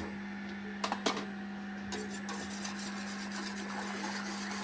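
Gas stove being lit for a low flame: two sharp igniter clicks about a second in. From about two seconds in comes a steady fast scraping hiss as a whisk beats the egg-and-milk mixture in the pot, over a constant low hum.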